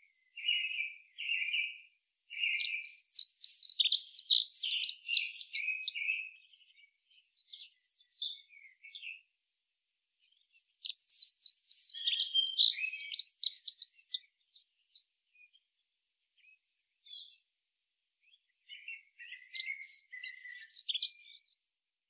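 A songbird singing: three phrases of fast, high, varied notes, each a few seconds long, separated by pauses with a few scattered single notes.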